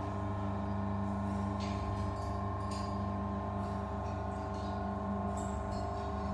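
DT2200 carpet fringing sewing machine running with a steady hum and whine, with a few faint ticks.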